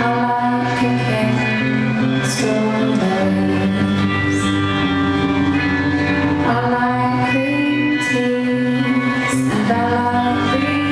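Live pop song performance: a woman singing held notes over guitar accompaniment, steady and loud throughout.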